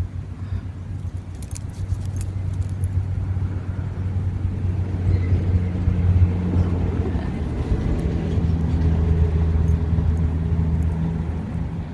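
A steady low mechanical hum, like a motor running, that grows louder after about two seconds and then holds steady, with a few faint light clicks about a second and a half in.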